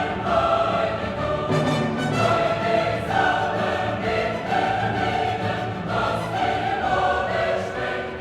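Classical choral music: a choir singing long held notes over an orchestra.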